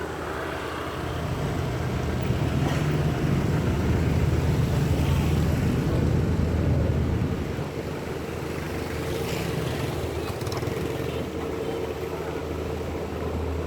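Street traffic: a motor vehicle engine running close by, growing louder for a few seconds and then easing off, over a general street hum.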